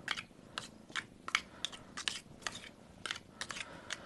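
Irregular short clicks and scrapes of a utensil against a bowl, about two or three a second, as wet cat food is being mixed and thinned with water into a soft mush.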